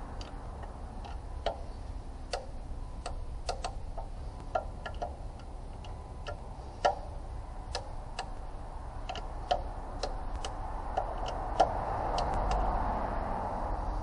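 Ratchet wrench clicking: sharp single clicks at uneven spacing, about two a second.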